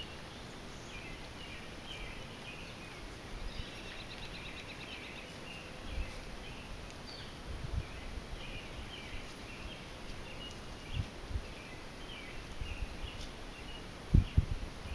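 Evening chorus of birds: many short, high chirps and calls throughout, with one fast trill a few seconds in. A few dull low thumps break through, the loudest a pair near the end.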